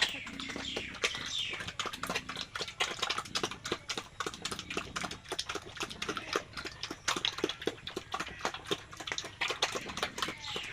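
Pigs eating feed, with rapid, continuous chomping and smacking and a few short falling squeals about half a second in and again near the end.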